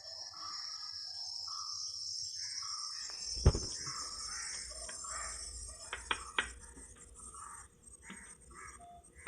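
A dog whimpering in short, repeated calls over a steady, high insect drone, with one loud sharp knock about three and a half seconds in and two lighter knocks about six seconds in.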